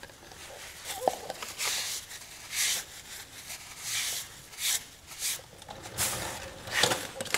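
Short, irregular scrubbing strokes of a hand-held brush or pad rubbing a neutralising solution into a tin-filled weld seam on a car's steel wing, with a light click about a second in.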